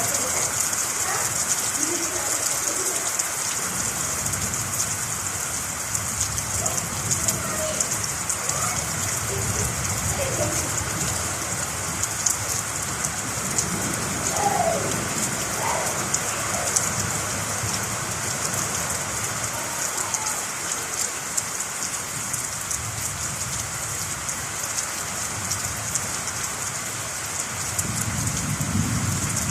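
Steady heavy rain, a dense hiss of drops pattering on surfaces. A low rumble of thunder swells near the end.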